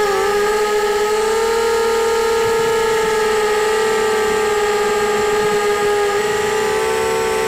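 Whine of a QAV250 racing quadcopter's four brushless motors and propellers in flight, heard close up from the onboard camera: a steady, loud whine of several tones whose pitch wavers briefly near the start and shifts again near the end.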